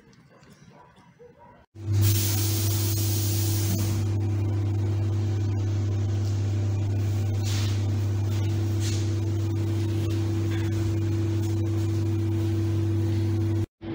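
Loud steady electrical hum inside the passenger car of an ER9M electric multiple unit. It starts abruptly about two seconds in and cuts off just before the end, after a faint, nearly quiet opening.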